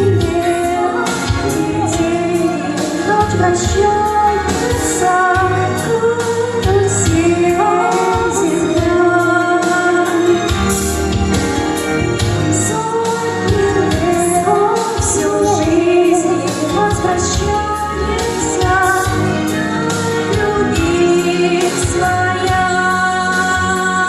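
A pop song playing: a wavering melodic lead line over sustained bass, with a regular beat.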